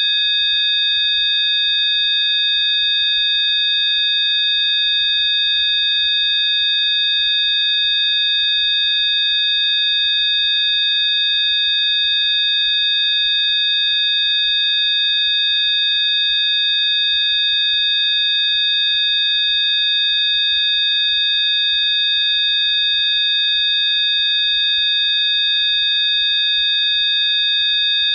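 Electronically generated Rife therapy frequency: several steady, high-pitched pure tones sounding together, held without any change in pitch or level.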